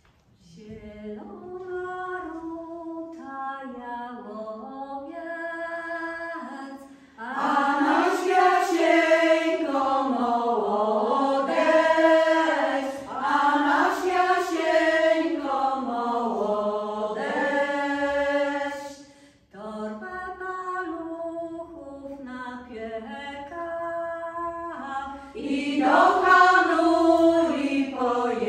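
A women's folk vocal ensemble singing a traditional Polish folk song in several voices, quieter phrases alternating with fuller, louder ones.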